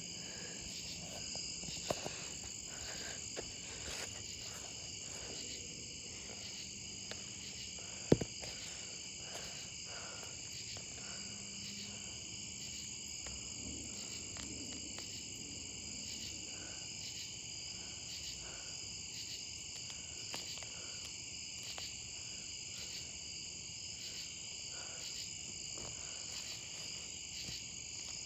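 Steady chorus of insects, typical of crickets, as a continuous high-pitched trill, with a few scattered sharp clicks, the loudest about 8 seconds in.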